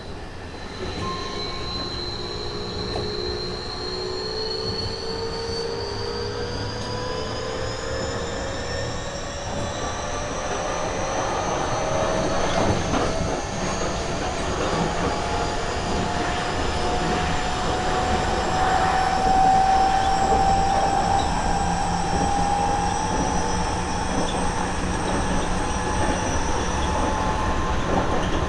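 Seibu 30000 series electric train with a Hitachi two-level IGBT VVVF inverter, heard from inside a motor car: the traction motors' whine rises slowly and steadily in pitch and grows louder as the train picks up speed, over the rumble of the wheels on the rails.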